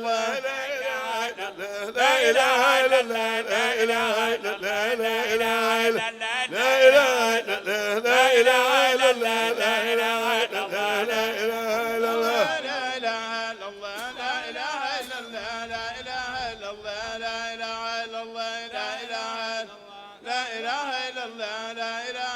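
Chanting voices of Islamic dhikr: a melodic chanted line over a steady held drone. The chant is loudest from about two seconds in to just past the middle, then carries on more softly.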